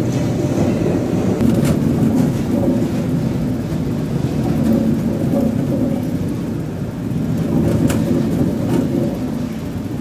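Potato-processing machinery running with a loud, steady rumble and a faint hum as potatoes tumble through a steel hopper and along the conveyor. A few sharp knocks stand out about a second and a half in and twice near the end.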